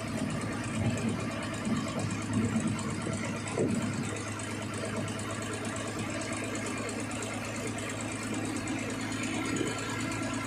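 An engine running steadily, a continuous hum with a fast mechanical clatter, with a few louder irregular noises in the first four seconds.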